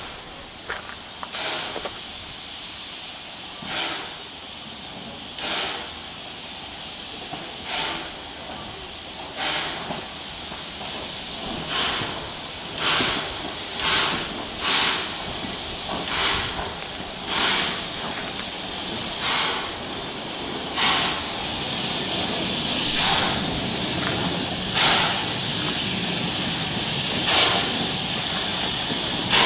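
Narrow-gauge NA-class 2-6-2T steam tank locomotive working slowly with its cylinder drain cocks blowing: hissing steam chuffs about every two seconds at first, quickening to about one a second and growing louder, with a steady hiss of steam underneath in the later part.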